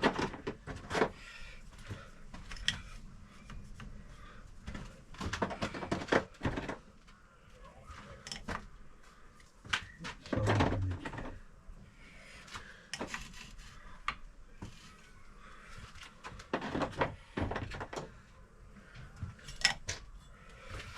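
Scattered knocks and clinks of fork seal driver kit tubes being handled and tried for size against the fork leg, at irregular intervals.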